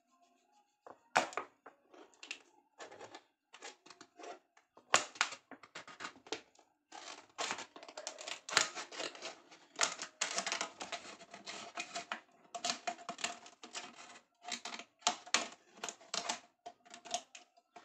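Scissors cutting through a large plastic drink bottle: an irregular run of crackling snips as the blades work through the plastic, sparse at first and denser from about halfway.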